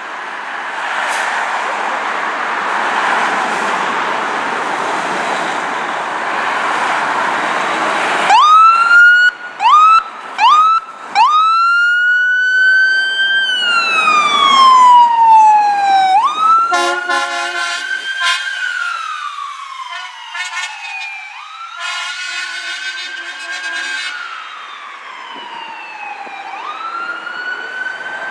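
Fire engine's electronic siren: a few quick upward whoops, then long wails rising and falling, with two blasts of the air horn over them. Before the siren starts, about eight seconds of steady engine noise as the truck pulls out.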